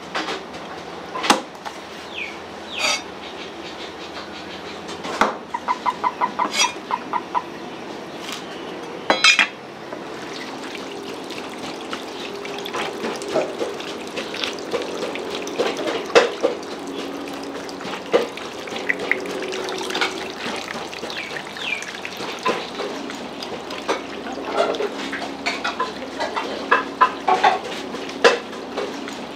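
Kitchen food-preparation noises: metal utensils and dishes clinking and knocking, with a quick run of rapid taps a few seconds in.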